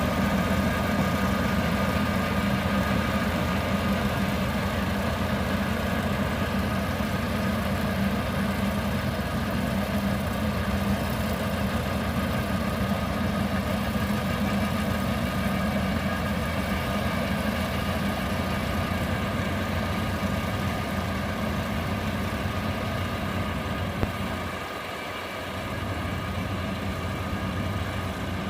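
Rice harvester's engine and machinery running steadily, with a brief drop in the low rumble about 25 seconds in and a single click just before it.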